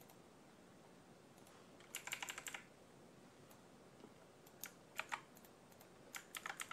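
Faint computer keyboard typing in short runs of keystrokes: a quick burst about two seconds in, a few single taps around five seconds, and another run near the end.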